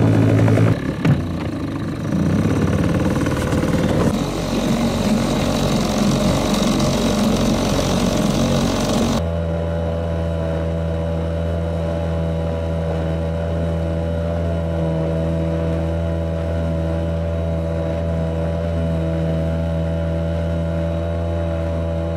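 Cold Tohatsu outboard motor running while it warms up, choke held closed in the frost, its sound shifting unevenly for the first few seconds. About nine seconds in the sound changes abruptly to a steady, even engine drone.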